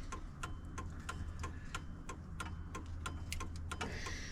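Hazard flasher of a 1999–2006 Chevy Silverado clicking steadily, about four clicks a second. The hazards are flashing on their own, the fault the new multifunction switch was meant to cure.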